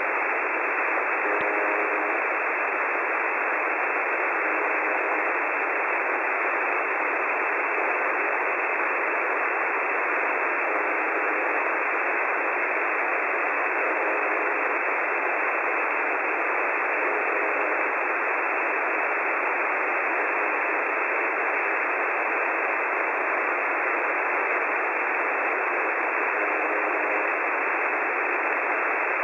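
Shortwave receiver hiss on 4625 kHz, steady throughout, with the UVB-76 'Buzzer' station's short buzzes coming through faintly every few seconds under the static.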